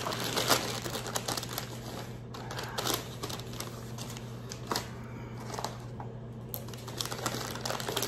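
A towel-wrapped brisket being set down and handled on a wooden cutting board: scattered knocks and clicks with light cloth and paper rustling, over a steady low hum.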